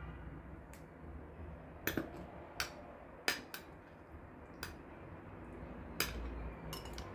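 Metal spoon clinking against glass as sauce is spread over the cabbage rolls in the baking dish: about eight short, sharp clinks at uneven intervals.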